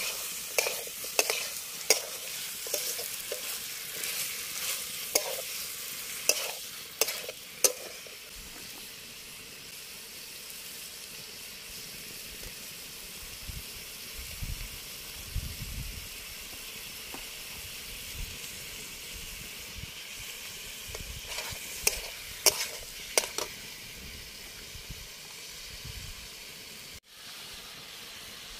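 Chicken and green peppers sizzling as they fry in a steel kadai, with a metal spatula scraping and clacking against the pan during spells of stirring in the first several seconds and again a little past the middle.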